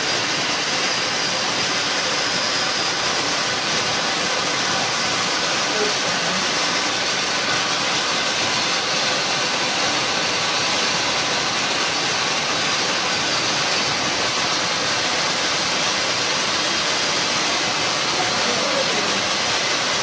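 Indoor cold-spark fountain (an electrically ignited 'cold flame' anaar firework) spraying sparks with a steady, loud hiss.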